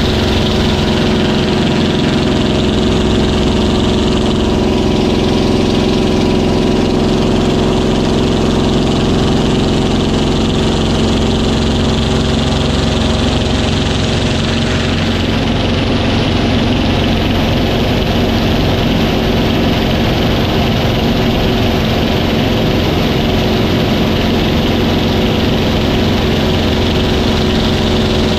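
Yak-3 fighter's piston engine and propeller running steadily at constant pitch, heard from inside the closed cockpit with a thick wash of air noise.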